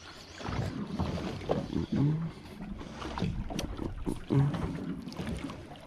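Fishing boat rocking on choppy water: water slapping the hull, with scattered knocks and a few short creaks.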